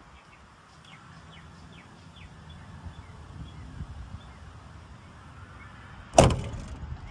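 A truck's steel cab door slamming shut about six seconds in: one sharp bang with a short ringing tail, over a low rumble and faint high chirps.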